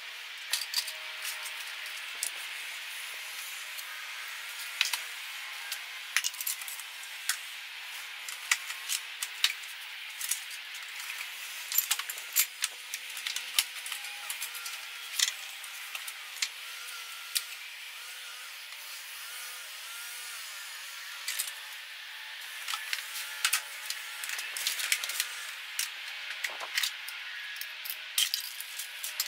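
Tools and small hardware clinking and knocking at irregular moments as they are picked up, sorted and set down, over a steady background hiss.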